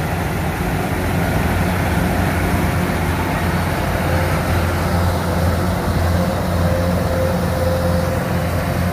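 Kubota DC-105X combine harvester's diesel engine and threshing machinery running steadily as it cuts rice. A faint whine joins in about four seconds in.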